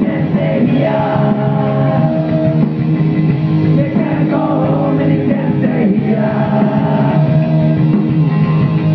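A punk rock band playing live and loud: electric guitars and drums with a singer's vocal over them.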